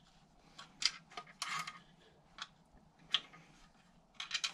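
Light, irregular metallic clicks and a short scrape as a spanner works the locking nut on a classic Mini's clutch arm adjuster, tightening it, with a quick run of clicks near the end.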